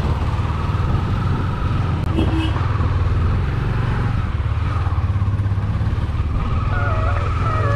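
Motorcycle engine running steadily under way, a continuous pulsing low rumble.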